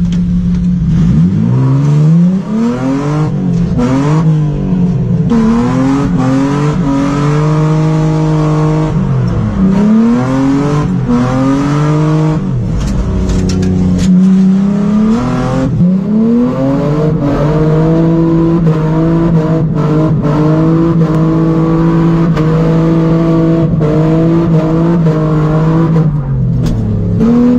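Mercedes-Benz C280 (W202) engine heard from inside the stripped-out cabin, running with no exhaust piping behind the catalytic converter. The revs climb and drop again and again through the first half, then hold steady for about ten seconds before falling near the end.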